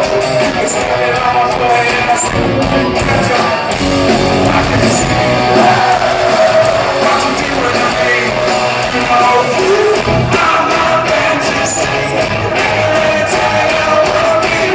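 Live rock band playing loudly, with electric guitars and a steady drum beat.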